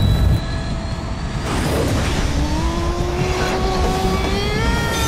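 Sound-effect blast of the Iron Man suit's boot thrusters firing for take-off: a loud jet-like rush that eases a little after half a second, then a whine of several tones rising slowly together as the suit accelerates.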